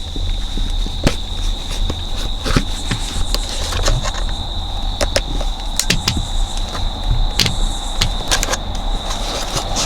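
Scattered clicks and knocks of a plastic sun visor mount being pried and worked loose from a car's headliner. Behind them run a steady high-pitched tone and a low rumble.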